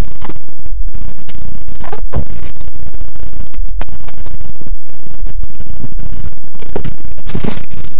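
Loud, heavily distorted crackling noise, clipped at full level throughout, with a few brief dropouts.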